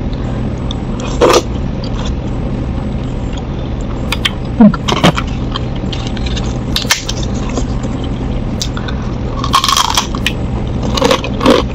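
Eating sounds: a few sharp clicks of a spoon and chewing, then a large fried cracker being bitten and crunched repeatedly in the last couple of seconds. A steady low hum runs underneath.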